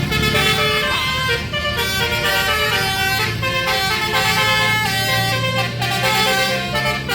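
Bus basuri (telolet) multi-tone horn playing a melody in a run of held notes, over the steady low rumble of the bus's engine.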